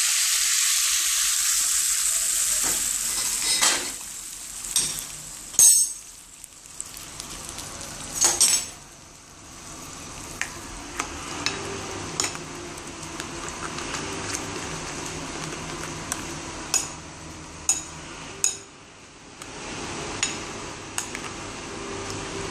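Hot tempering oil with mustard seeds, sesame seeds, curry leaves and dried red chillies sizzling loudly for about three seconds as it is poured onto curd. Then a metal spoon stirs it into the curd, scraping and clinking against the bowl.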